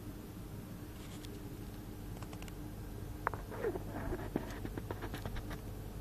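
Steady low hum of a Baxi combi gas boiler running normally after a repair. From about three seconds in, irregular scratching and sharp clicks of handling noise close to the microphone sit over the hum and are the loudest sounds.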